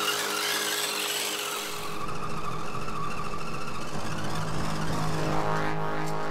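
HG P402 RC crawler's electric motor and gears whining as it drives over loose dirt. There is a hiss for the first two seconds, and a steadier low hum from about four seconds in.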